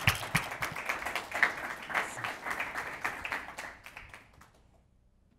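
Audience applauding, the clapping fading out about four and a half seconds in.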